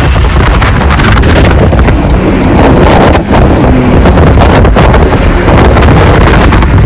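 Loud wind buffeting the microphone as it is held at the window of a car driving fast along a highway, with road noise underneath.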